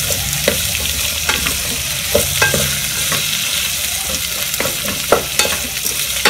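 Onions and tomato sizzling in oil in an electric cooker's metal pot while a wooden spatula stirs them, with frequent short scrapes and knocks of the spatula against the pot.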